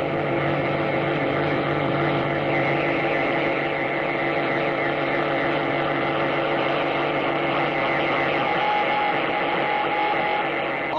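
Radio jamming signal coming through a valve radio receiver: a loud, steady buzzing drone made of many tones at once, with no speech or music getting through. A higher steady tone joins near the end.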